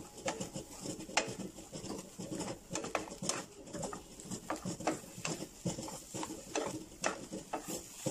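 Wooden spatula stirring and tossing sliced bitter gourd in a non-stick frying pan: irregular clacks and scrapes against the pan, several a second.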